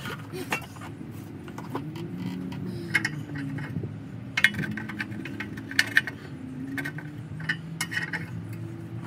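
Metal clinks and scrapes from tools working a torsion bar unloading tool under a truck, in short irregular groups, over a low wavering hum.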